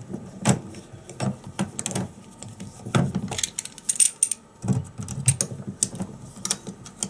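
Locking pliers clicking and scraping on a rusted screw as it is turned out of wood and re-gripped between turns: irregular sharp clicks about once or twice a second.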